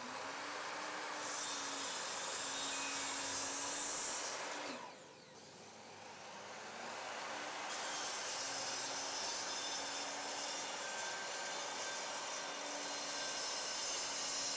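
Evolution R255SMS sliding mitre saw running and cross-cutting laminated chipboard with a fine-tooth blade. The motor hum and cutting hiss drop away about five seconds in as it winds down, then the saw starts again for a second cut.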